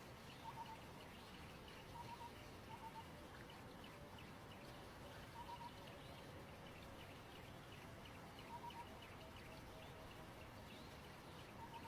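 Faint wild birdsong: short paired whistled notes repeat every few seconds, a run of lower cooing notes comes past the middle, and soft high chirps and ticks sound throughout.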